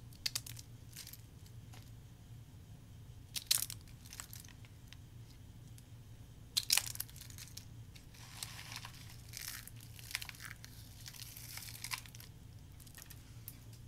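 Dry soap curls crushed and crumbled between fingers: a few sharp, crisp crackling snaps at about half a second, three and a half and six and a half seconds in, then a longer run of fine crackling as the shavings are rubbed and broken.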